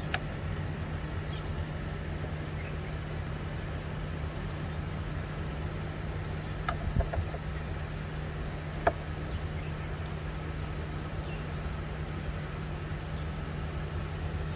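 An engine idling steadily, a constant low hum, with a few sharp metallic clicks from a screwdriver working the screws of the air flow sensor. There are two clicks close together about halfway through and another about two seconds later.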